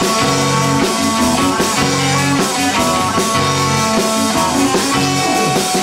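Rock band playing live in an instrumental passage between sung lines: electric bass, guitars and keyboard over drums.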